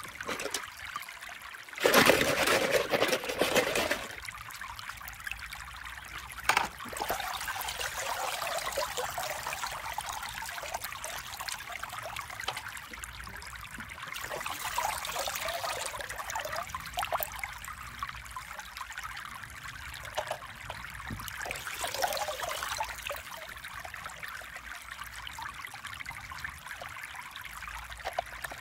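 Water sloshing and trickling as a hand moves small toy cars about in a tub of water, with a louder stretch of splashing about two seconds in and a short knock a few seconds later.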